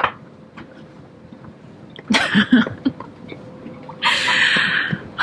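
A woman laughing breathily in short bursts, once about two seconds in and again, more as a breathy exhale, about four seconds in, with faint knocks and clicks between.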